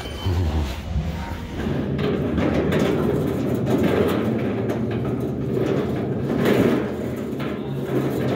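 Metal flatbed hand cart rolling over a concrete store floor: a steady rolling rumble from its wheels, with the frame rattling.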